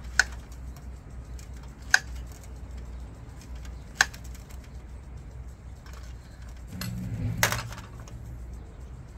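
Tableware being handled on a plate: three sharp clinks about two seconds apart, then a brief scraping rustle about seven seconds in.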